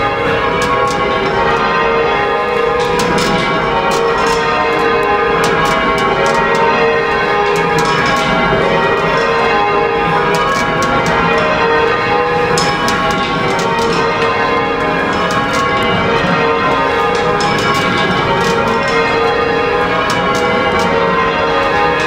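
Tower bells rung full-circle by a band of ringers on ropes, in change ringing: a continuous, overlapping run of bell strokes.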